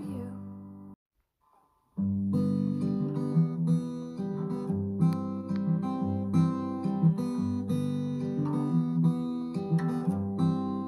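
Music: a solo acoustic guitar's fading chord cuts off about a second in. After a second of silence, the guitar starts picking a steady fingerpicked pattern, the instrumental intro before the singing comes in.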